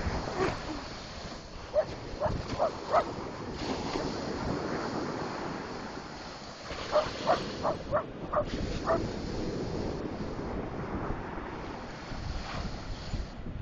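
Dog barking at the surf in short sharp barks, four about two seconds in and then a quicker run of about six near the middle, over the steady wash of breaking ocean waves.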